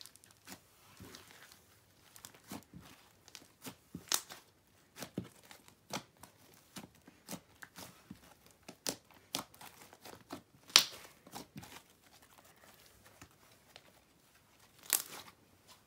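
Slime mixed with rainbow foam beads and sprinkles being kneaded and folded by hand: irregular sticky clicks and crackles, with louder snaps about eleven seconds in and again near the end.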